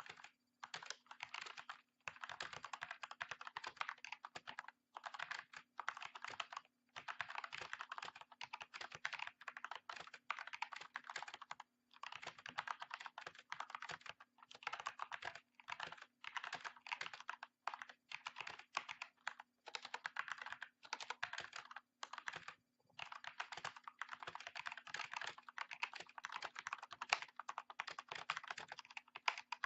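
Typing on an Ajazz AK45 mechanical keyboard with Kailh BOX switches: rapid keystrokes in runs of a few seconds, broken by short pauses.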